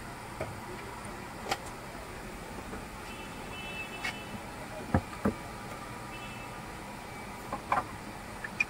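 Steady street-stall background hum with scattered sharp clicks and knocks of utensils on a steel bowl and containers, the loudest two close together about five seconds in.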